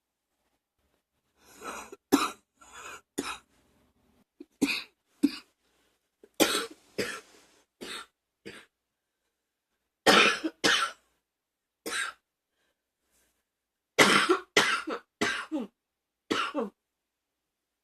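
A person coughing repeatedly in short bouts of two to four harsh coughs, a few seconds apart. The last coughs trail off with a falling voiced tone.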